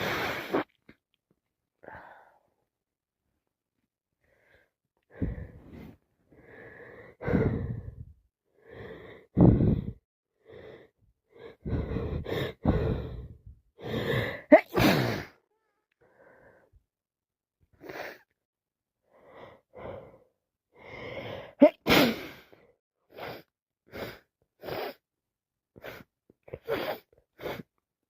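A person sneezing several times in a row, with short breaths between the sneezes. The loudest sneezes come about a third of the way in, around halfway, and again about three-quarters of the way through.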